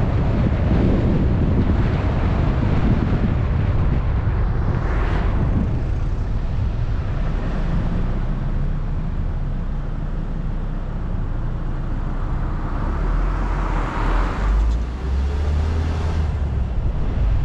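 A car driving along a road, recorded by a mounted GoPro: steady low rumble of engine, tyre and wind noise, with two brief swells of louder noise, about five seconds in and again near the end.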